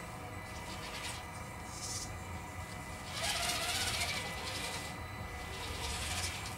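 Venom Creeper RC rock crawler's 55-turn electric motor and gearbox whining as it crawls over boulders, with rasping scrapes of tyres and chassis on the rocks that grow louder about halfway through.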